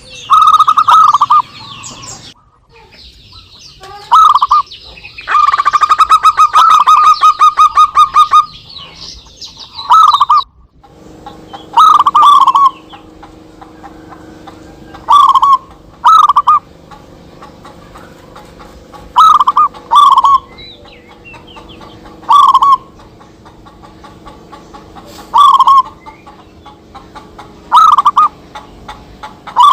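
Zebra doves (perkutut) cooing back and forth. About five seconds in there is a rapid run of cooing notes. After that come short, loud coo phrases repeated every one and a half to three seconds.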